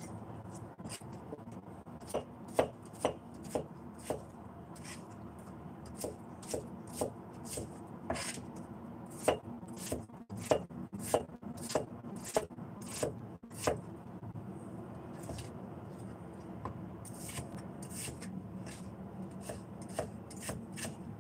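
Cleaver chopping celtuce stem into thin strips on a plastic cutting board: irregular knocks of the blade on the board, about two to three a second, thinning out and softening over the last few seconds.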